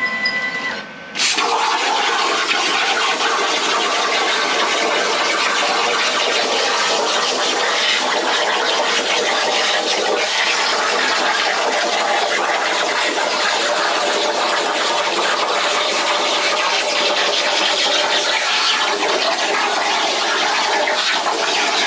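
Air plasma torch on a Langmuir Systems CrossFire CNC plasma table cutting 16-gauge steel sheet: a loud, steady, harsh hiss that starts suddenly about a second in as the arc strikes and cuts.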